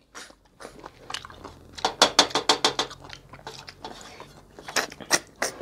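River snails being sucked and slurped out of their shells by hand, in short sharp slurps with a quick run of them about two seconds in, and shells clicking against a steel plate.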